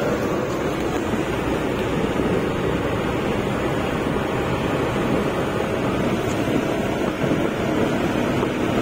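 Steady rush of wind and road noise inside the cab of a Suzuki DA63T mini truck cruising on the highway.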